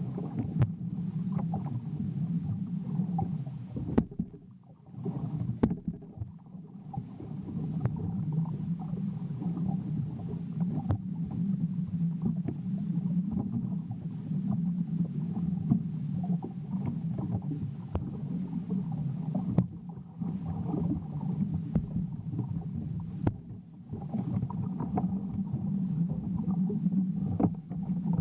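Jet ski engine running steadily, with sharp knocks from the hull hitting rough water. The engine sound drops away for a couple of seconds about four seconds in and briefly again near the end.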